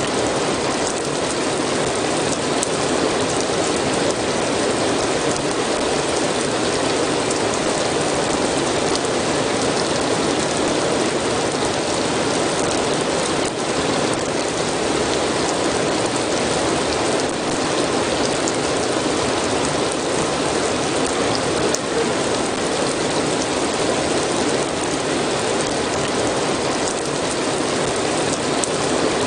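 Steady rain falling, an even dense hiss with faint scattered drop ticks.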